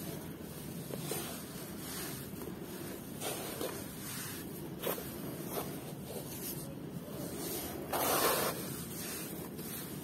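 Hands scooping and crumbling clumpy red dirt in a basin: a steady soft crunching and rustling of soil, with small crackles as clumps break and fall back. A louder rush of falling dirt comes about eight seconds in.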